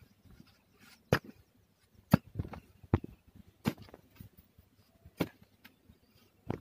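A short-handled hand hoe chopping into dry, hard earth while digging a small hole: about six separate thuds, roughly a second apart, with crumbling soil between strikes.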